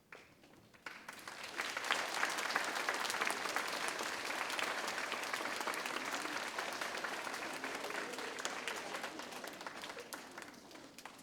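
Audience applauding: clapping builds up about a second in, holds steady, and dies away near the end.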